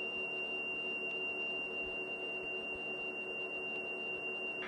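Lead-in (pilot) tone of a Commodore program cassette played back on a Commodore datasette: a single steady high-pitched tone, giving way to the file header's data signal right at the end.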